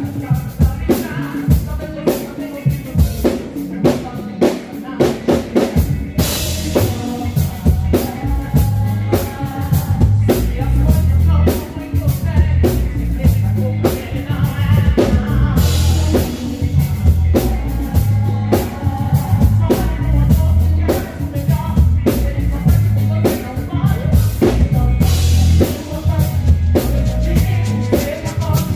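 Band music led by a drum kit with a steady beat and heavy bass, with a cymbal crash about every nine or ten seconds.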